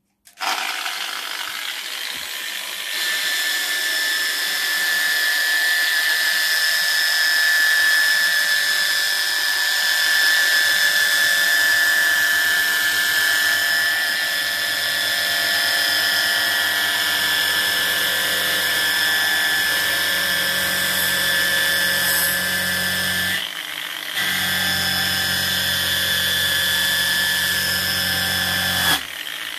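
Angle grinder fitted with a rotary brush, starting up about half a second in and then running steadily with a whine. The brush is scouring a wooden board, tearing out the soft grain between the hard growth rings to give the board an aged texture. The sound breaks off briefly twice near the end.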